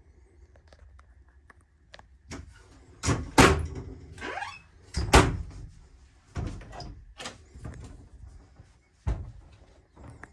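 A series of knocks and thuds, the loudest about three and five seconds in, with a short falling squeak between them.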